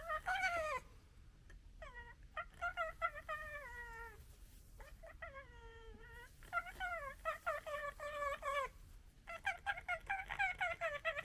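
An animal's repeated drawn-out calls, about five of them, each one to two seconds long and mostly falling in pitch.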